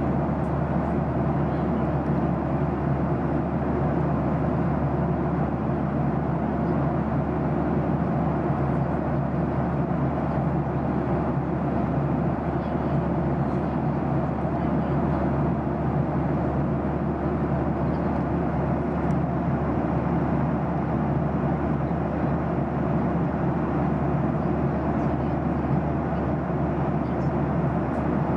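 Steady cabin noise of a jet airliner in cruise: an even rush of engine and airflow noise with a low hum underneath, unchanging throughout.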